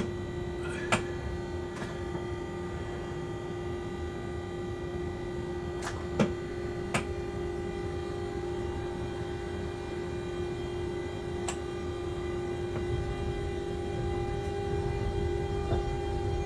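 Steady hum of an electric locomotive's equipment heard inside its cab, with a few short sharp clicks. A low rumble builds over the last few seconds as the train begins to move off.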